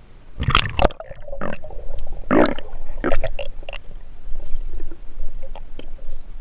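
River water splashing as the microphone goes under, then muffled underwater gurgling and bubbling with irregular knocks and bursts, about half a second and two and a half seconds in being the loudest.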